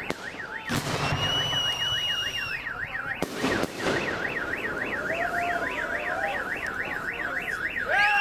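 A car alarm siren wailing, its pitch sweeping up and down about three times a second without a break, with firework bangs about a second in and again around three and a half seconds in.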